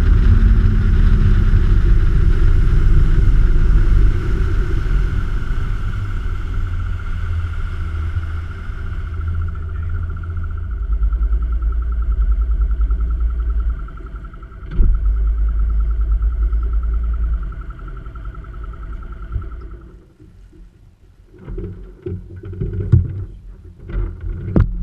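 A boat's motor running at low speed, a steady whine over a low rumble, easing down in steps and cutting out about 20 seconds in. After it stops come a few knocks on the boat and faint voices.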